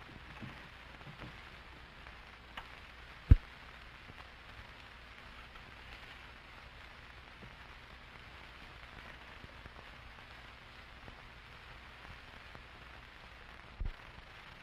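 Faint steady hiss with light crackle from an old recording, with one sharp pop a little over three seconds in and a smaller one near the end.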